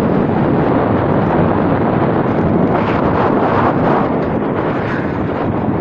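Wind buffeting the microphone over the steady running and road noise of a moving vehicle.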